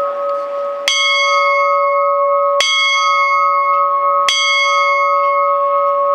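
A bell struck three times, about a second and a half apart, each stroke sharp at the start and ringing on, with the ring holding steady between strokes.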